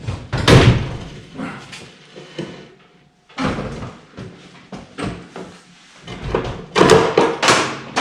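A door banging shut about half a second in, followed by scattered knocks and handling noises, with another cluster of loud knocks near the end.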